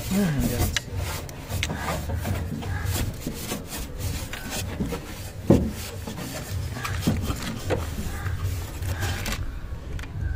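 Cloth rubbing and wiping against the painted sheet steel inside a car door cavity, an irregular scuffing with scattered clicks. A sharp knock about five and a half seconds in is the loudest sound.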